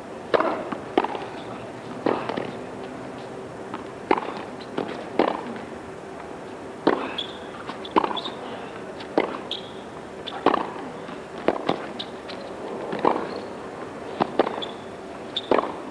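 A tennis ball struck back and forth in a long baseline rally: racquet hits and ball bounces land as sharp pops every half-second to second and a half.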